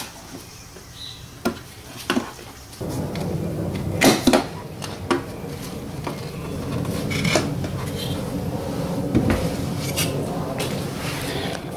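Plastic clicks and clatter from a car's rear light cluster being handled and pulled away from the body, with a scattering of sharp knocks. From about three seconds in there is a steady rough rustle of handling.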